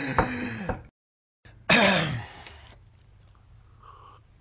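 A man's voice: the tail of a laugh, then after a moment of dead silence a loud breathy sigh that falls in pitch and fades. Faint sipping sounds come near the end as he drinks from a small glass.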